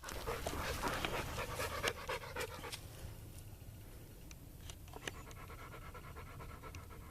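A dog panting, strongest in the first three seconds and then fainter.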